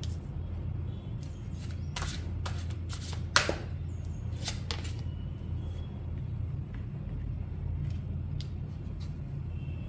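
Tarot cards being handled and laid out, giving a quick run of sharp card flicks and snaps between about one and five seconds in, and two more near the end, over a steady low hum.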